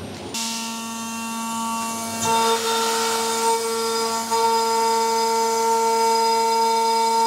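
CNC milling machine's end mill cutting aluminium plate: a steady spindle whine, joined about two seconds in by a louder, higher ringing tone as the cutter bites into the metal.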